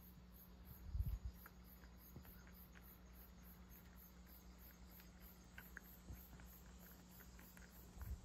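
Very quiet cat licking and chewing the last crumbs of dried sardines, heard as scattered small soft clicks. Underneath is a steady low hum and a faint high pulsing about three times a second, with a soft low bump about a second in.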